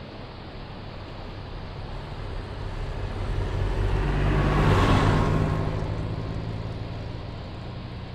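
A car driving past, its engine and tyre noise swelling to a peak about five seconds in and then fading away.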